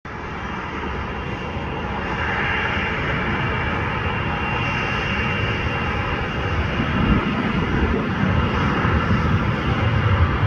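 Boeing 737 jet engines at takeoff thrust as the airliner accelerates down the runway: a steady roar with a high whine on top, building over the first couple of seconds and then holding.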